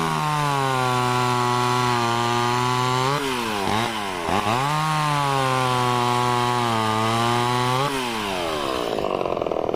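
Vintage Homelite chainsaw running at full throttle through two long cuts of about three seconds each. The engine speed rises, holds steady under load, then falls back between the cuts and again near the end.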